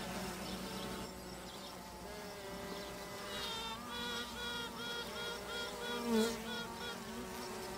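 Honeybee queen piping: a run of short, pitched notes, about two a second, clear from about three seconds in, over the steady buzz of the bees on the comb. Piping is one queen calling to a rival queen elsewhere in the hive, trying to locate her so they can fight for the colony.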